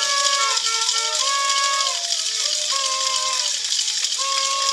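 A rattle shaken steadily under a tune of long held notes at several pitches, each note lasting about a second and overlapping the next.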